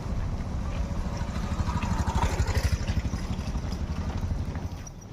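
Vehicle engine rumble from passing road traffic, a low pulsing drone that swells about a second and a half in and eases off near the end.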